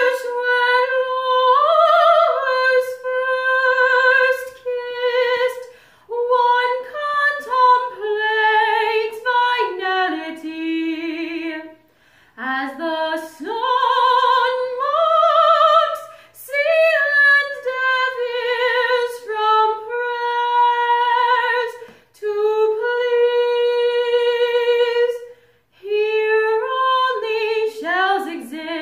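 A woman singing solo and unaccompanied, holding long notes with vibrato, with short breaks between phrases.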